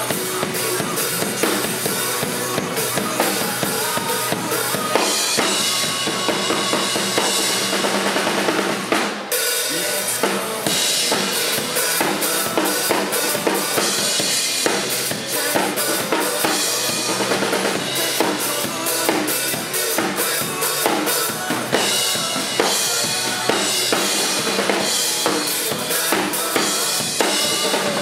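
Acoustic drum kit played hard along to a recorded band backing track, with steady bass drum and snare hits under washes of cymbal. The drumming and music drop back for a moment about nine seconds in, then come back in full.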